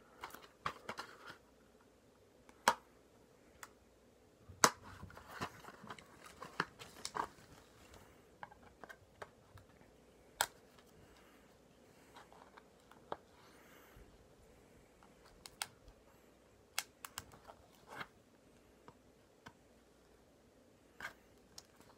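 A plastic DVD case being handled and pried at to get it open: irregular sharp clicks and snaps, with soft scratching and rustling between them.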